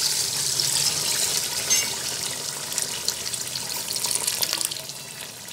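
Mutton stock (yakhni) poured from a jug into a pot of browned mutton: a steady splashing rush of liquid that tapers off over the last couple of seconds.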